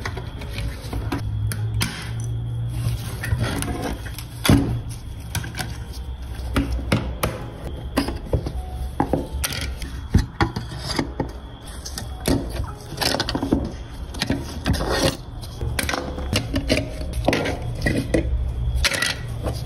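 Disassembly of a rusted die-cast model car: irregular clicks, taps and scrapes of a screwdriver and small metal and plastic parts being pried apart and set down on a cutting mat, over a steady low hum.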